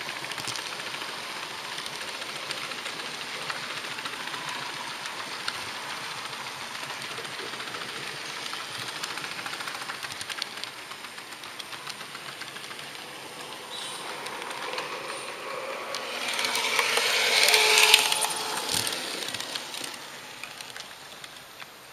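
HO-scale model train running along its track, heard from a camera riding on it: a steady rolling hiss with fine clicking of the wheels over the rails, swelling louder for a few seconds near the end before fading.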